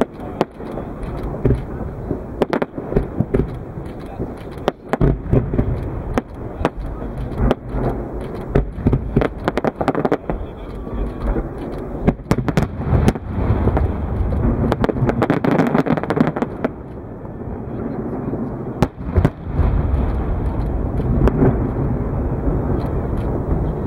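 Fireworks display: aerial shells bursting in a rapid, irregular barrage of sharp bangs and crackles over a steady low rumble. The bangs thin out briefly about two-thirds of the way through, then pick up again.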